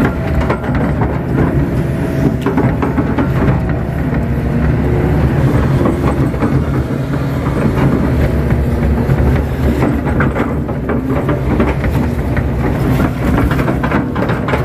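Kato crawler excavator's diesel engine and hydraulics working steadily under load, heard from the operator's cab, as the bucket scoops and smooths wet mud along a pond bank. Its pitch shifts with the arm movements, with a few clatters near the end.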